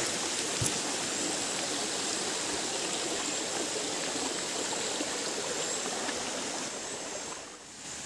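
Steady rush of water from a shallow, rocky river running over stones. It drops away briefly near the end.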